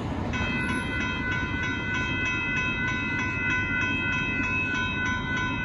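Railroad crossing signal bell starts ringing about a third of a second in, a fast, steady run of bell strokes: the crossing has been activated by an approaching train. A low rumble runs underneath.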